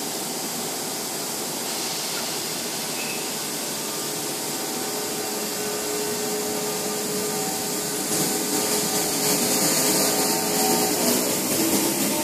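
First Capital Connect electric passenger train pulling away from the platform: a steady mechanical whine and rush of the moving train, growing louder about eight seconds in.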